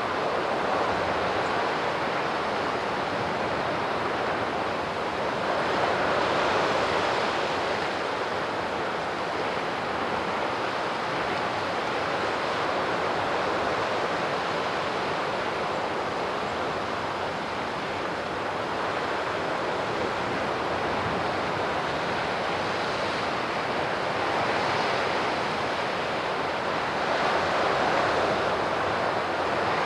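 Sea waves washing on the shore: a steady surf noise that swells as waves break, about six seconds in and twice more near the end.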